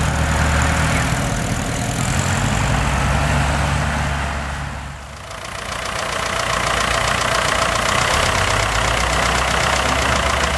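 Vintage military jeep's engine running as it drives off across sand; about five seconds in, after a cut, a farm tractor's engine running steadily at idle with an even, fast beat.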